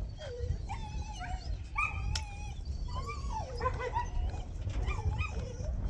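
Dog whining and yipping: repeated high, wavering cries that rise and fall in pitch.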